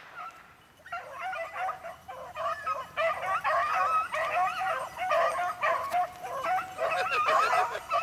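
Beagle hounds baying on a rabbit's trail: several hounds giving voice at once in overlapping, wavering cries. The cries start about a second in and grow thick and continuous from about three seconds.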